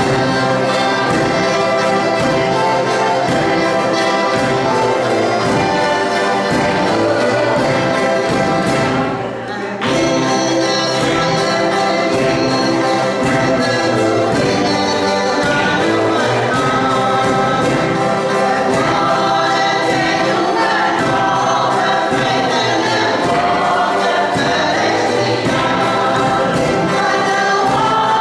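A cavaquinho ensemble strumming with acoustic guitar and accordion while a group of voices sings together. The music dips briefly about nine seconds in, then carries on.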